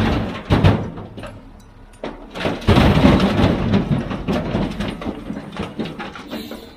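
Heavy machinery at work: a low rumble that dies away in the first second or so, then a run of knocks and clatter.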